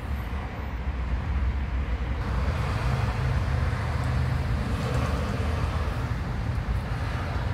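Steady low rumble of a running engine or vehicle.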